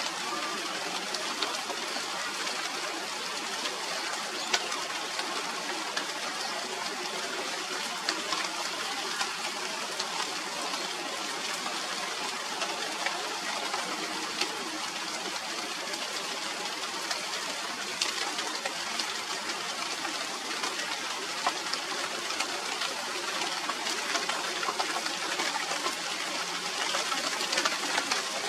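Steady rain falling on the leaves of a Radermachera sinica (China doll) tree: an even hiss with many small drop ticks scattered through it.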